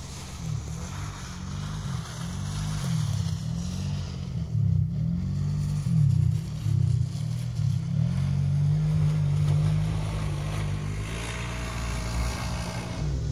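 Off-road competition vehicle's engine revving, its pitch rising and falling over and over as it drives along a muddy track, then holding steadier for a few seconds before easing off near the end.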